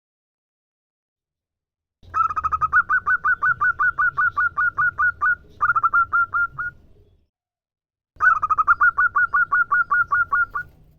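Female zebra dove (perkutut) calling: a rapid run of short, clipped coo notes, about six or seven a second. Two bursts a few seconds long are separated by a brief gap, and each starts and stops abruptly.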